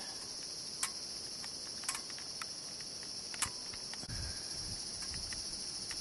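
Steady high-pitched chorus of forest insects, with a few sharp clicks and some low rumbling in the second half.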